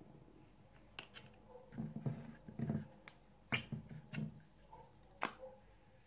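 Bottles and wrapped packaging being handled on a tabletop: a handful of sharp clicks and knocks, with a few duller thuds in between.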